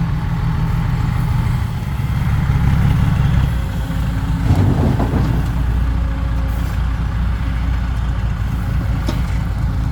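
Dump truck's diesel engine running with a steady low drone; about three and a half seconds in its note shifts lower. A brief higher-pitched sound comes over it around the middle.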